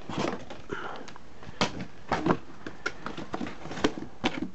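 Cardboard boxes and plastic-packed kit parts being handled and shifted inside a cardboard box: a scattering of knocks, taps and rustles at uneven intervals.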